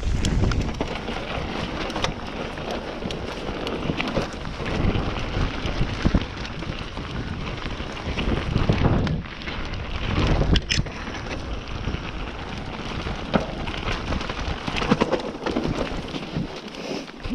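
Mountain bike riding down a dirt trail: a steady rumble of tyres over dirt and stones and of air buffeting the microphone, with many scattered knocks and rattles from the bike over rough ground.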